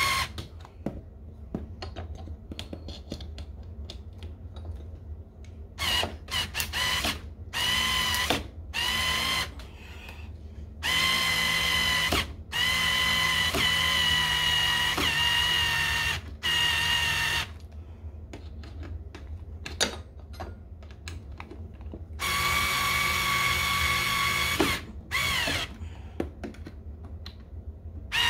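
BLACK+DECKER 4V MAX cordless screwdriver driving screws into a door frame in about five runs of steady motor whine. The longest run lasts about six seconds near the middle, with quieter spells of small clicks and handling between runs.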